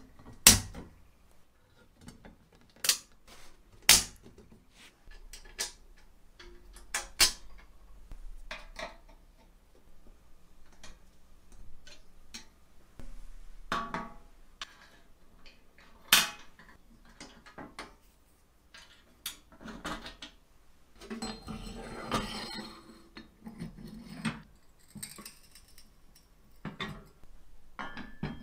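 Restored antique hand-cranked potato peeler being handled and assembled: sharp, irregular metal clicks and knocks as its cast parts, gear and perforated drum are fitted and tapped together, with a short stretch of busier rattling a bit past the middle.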